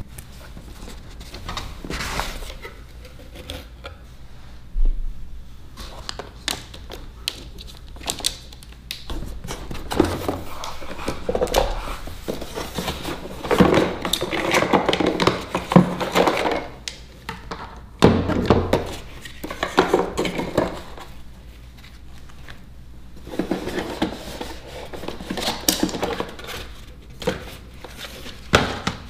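Cardboard packaging being handled: a box opened and inner boxes and pieces lifted out and set down on a desk, with irregular scraping, rustling and thunks.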